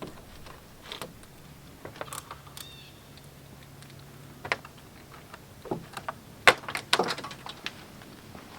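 Scattered clicks and light knocks of screws being worked out of a truck's hood bug shield, the sharpest about six and a half seconds in, with a brief squeak near three seconds.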